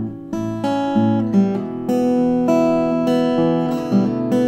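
Acoustic guitar being picked, with low bass notes moving under higher melody notes.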